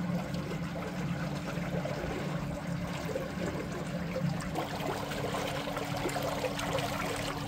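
Water rushing and churning around the leg of a 6 kW ePropulsion electric outboard as the boat motors along, over a steady low hum.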